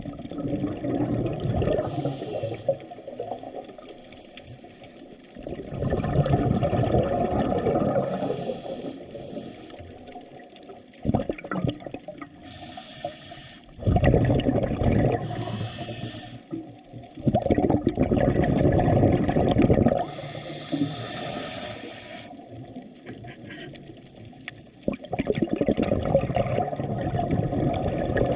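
Water surging and washing in irregular swells, each lasting a few seconds, with quieter spells between them.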